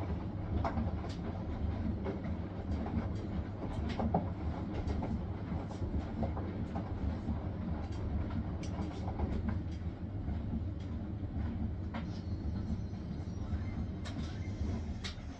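Hisense front-loading washing machine running on its spin cycle: a steady low rumble with scattered light clicks and knocks from the drum.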